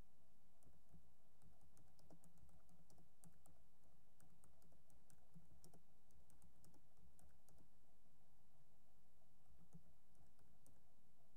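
Typing on a computer keyboard: faint, irregular runs of keystroke clicks with short pauses between words.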